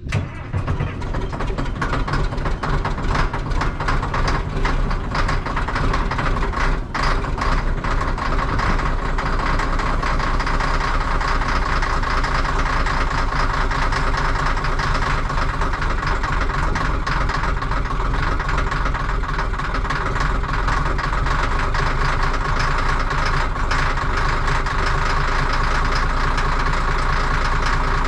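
Heavy diesel engine of a Caterpillar 14G motor grader running steadily.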